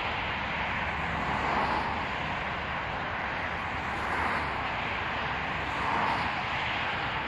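Distant jet engine noise from an approaching Boeing 737-500 airliner: a steady rushing hiss that swells and eases slowly a few times.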